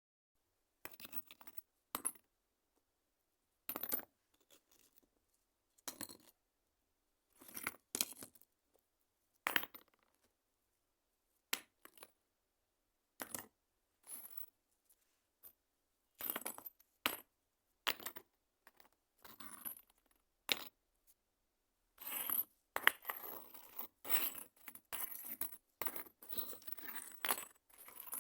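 Stones knocking and clattering together in short, sharp clicks and rattles, spaced out at first and becoming a busier, near-continuous clatter over the last several seconds.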